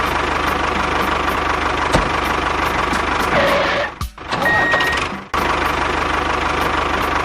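An engine running steadily with an even ticking rhythm. It cuts off abruptly about four seconds in and starts again about a second later.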